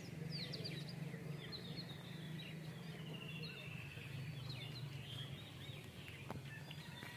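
Small birds chirping, many short high calls overlapping, with a quick run of repeated notes about three seconds in, over a steady low hum.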